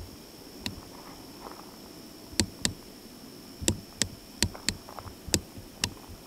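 About nine sharp clicks and snaps at irregular intervals, over a steady high-pitched drone of night insects.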